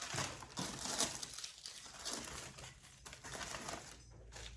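Packaging crinkling and rustling as a parcel is handled and opened, loudest about a second in.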